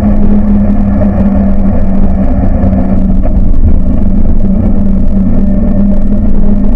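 Buggy engine running at a steady speed under way, a constant hum over a heavy low rumble.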